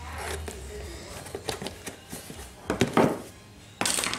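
Cardboard shipping box being handled and its packing tape cut and worked at: scattered taps, scrapes and knocks on the cardboard, with a short ripping burst near the end as the tape is pulled.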